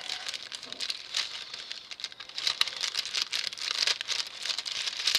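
Crinkling of a cleaning-wipe packet's wrapper being handled and opened, a steady run of small crackles and clicks.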